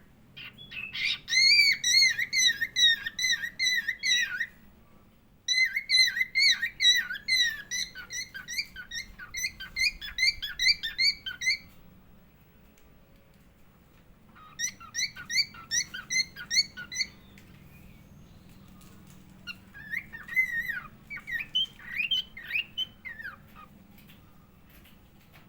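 Cockatiel singing: four phrases of quick, repeated warbling whistles, the last one more broken up, with short pauses between them.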